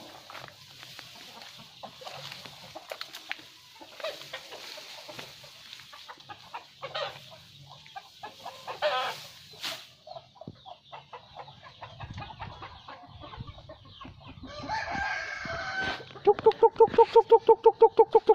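Free-ranging chickens clucking and a rooster crowing, with scattered light clicks and rustles. Near the end comes the loudest sound, a fast, evenly repeated pitched call of about five notes a second, lasting some three seconds.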